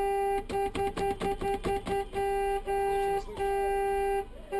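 Vehicle horn blaring on one steady note: held at first, then honked in a fast string of about eight short blasts, then in longer blasts. A siren's faint rising and falling wail sounds under it near the middle and again near the end.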